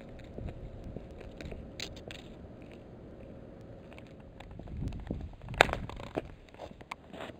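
Close crunching and rustling from handling the camera, with scattered clicks and a sharp knock about five and a half seconds in as it is moved.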